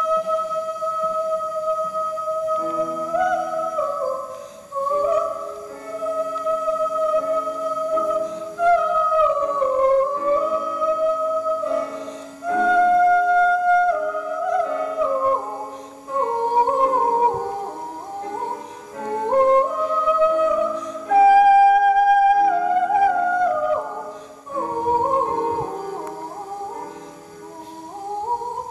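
A female voice sings a solo melody with piano accompaniment. It opens on a long held high note, then moves up and down in steps and short slides over sustained chords.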